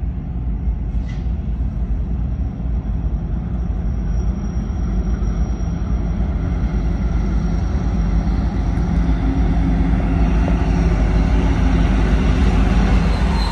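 Several Union Pacific diesel-electric locomotives leading a loaded coal train, their engines running with a steady low drone that grows louder as they approach.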